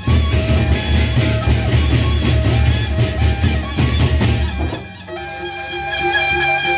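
Gendang beleq ensemble: large Sasak barrel drums pounded in a fast, dense rhythm with sharp metallic strikes on every beat. The heavy drumming drops out about five seconds in, leaving a wind instrument playing steady held notes over a lighter beat.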